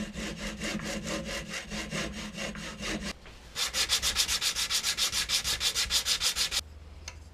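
Hacksaw fitted with two blades sawing a slot into a wooden lure body for a hinge plate, in steady strokes about four a second. After a short pause a wide flat blade is worked faster in the slot, in brighter, higher strokes about seven a second, stopping about a second before the end.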